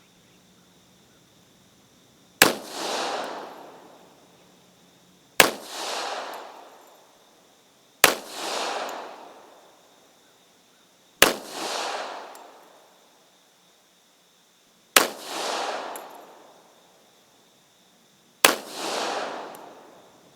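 Six single shots from a Springfield Armory M1911-A1 .45 ACP pistol, fired slowly about three seconds apart. Each sharp crack is followed by a rolling echo that swells about half a second later and dies away over a second or so.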